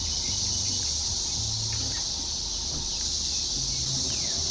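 A dense chorus of Brood X periodical cicadas: a steady, loud, high-pitched drone that does not let up.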